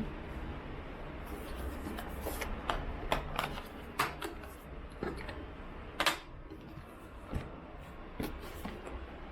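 Hands getting a small drone out and handling it: soft rubbing and rustling with scattered light clicks and knocks, the sharpest about four and six seconds in.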